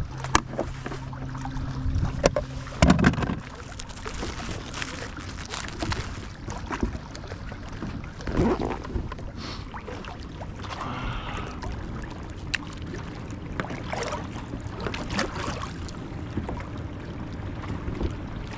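Handling knocks and clicks on a fishing kayak, over water lapping and wind on the microphone, with a low steady hum for about the first three seconds.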